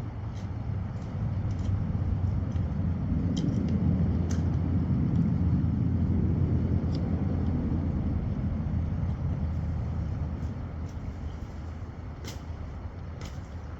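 A low engine rumble that grows louder over a couple of seconds, holds, then slowly fades, with a few sharp clicks scattered through it.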